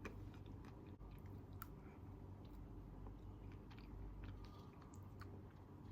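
Faint chewing and small mouth and spoon clicks of a person eating soft chocolate cake, scattered irregularly over a low steady hum.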